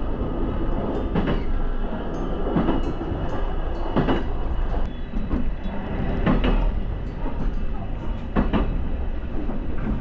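Electric local train on the JR Ban'etsu West Line, heard from inside the car: a steady running rumble with a handful of wheel clacks over rail joints.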